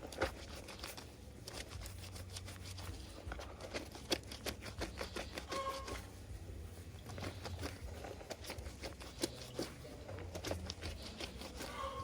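Rustling and crinkling handling noise, with many small irregular clicks and taps.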